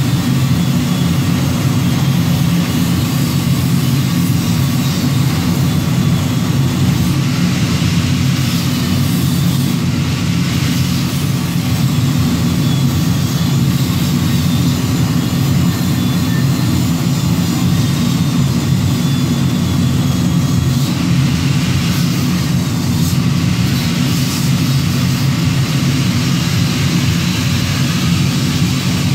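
Heavy forge-shop machinery running with a steady low hum, even in level throughout, with no blows or press strokes.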